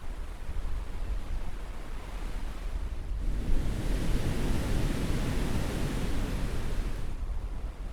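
Caribbean surf: a steady low rumble of waves, with one wave breaking and washing up the shore, a broader hiss rising about three seconds in and falling away about four seconds later.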